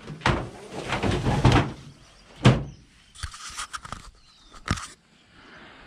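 Metal tent rods clattering as they are laid into a metal storage trunk, then the trunk's lid shut with a single loud bang about two and a half seconds in, followed by a few lighter knocks and clicks.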